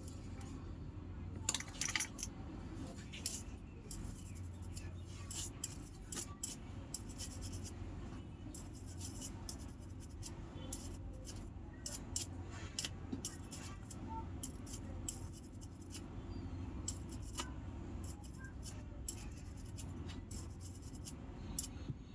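Irregular small clicks and scrapes of a metal tool working on a smartphone's opened internals at the speaker contact, over a steady low hum.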